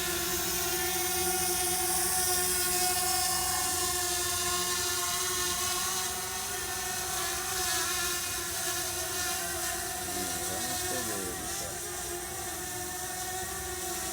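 DJI Mavic Mini drone's propellers and motors whining steadily in flight, with a brief wavering in pitch about ten seconds in and growing slightly fainter from about six seconds in.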